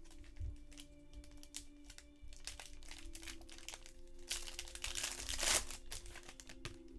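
Crinkling and tearing of a trading-card pack wrapper being opened by hand, loudest from about four to five and a half seconds in. Faint background music with held notes runs underneath.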